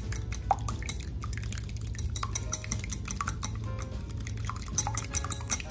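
Metal wire whisk beating eggs in a glass bowl, its wires clicking against the glass in quick runs, thickest near the end.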